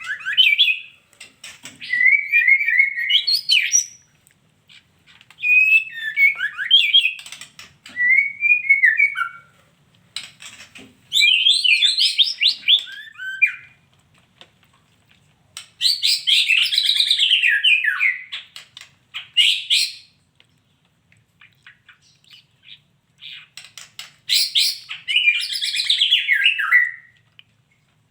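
Female white-rumped shama (murai batu) calling in short, quick phrases of high chirps and warbles, each lasting one to three seconds, with pauses between them.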